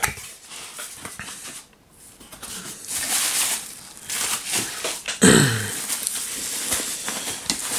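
Plastic packing wrap crinkling and rustling as it is pulled out of a cardboard box, with the cardboard flaps scraping, in two spells. About five seconds in, a short vocal sound falls in pitch.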